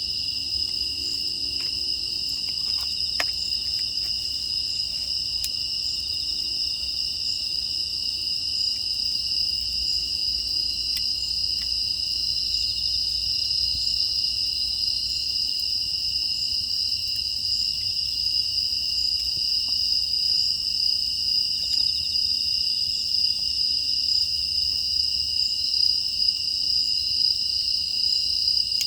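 A steady, high-pitched chorus of crickets and other grass insects chirping without a break, with a few faint clicks in the first few seconds.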